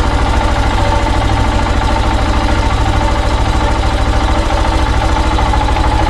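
KTM 690 Enduro's single-cylinder engine idling steadily, with an even, rapid low pulse and no change in speed.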